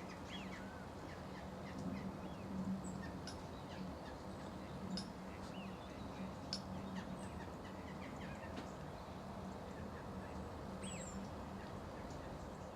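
Wild birds calling: many short chirps and a few sharp high notes, scattered irregularly over a steady background noise.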